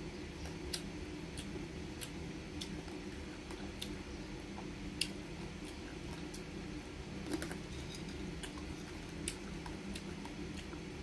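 Close-up eating sounds of crispy dried anchovies with rice: irregular small sharp clicks and crunches of chewing and handling the food, about a dozen over the stretch, the strongest about five and seven seconds in. A steady low hum lies underneath.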